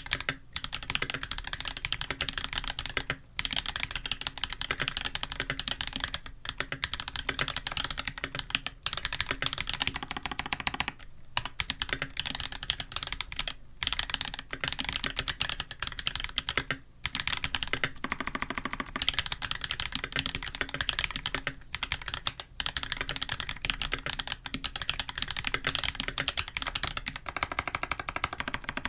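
Continuous fast typing on a mechanical keyboard with lubed Holy Panda tactile switches, acrylic plate and GMK keycaps: a dense run of keystroke clacks with a few brief pauses.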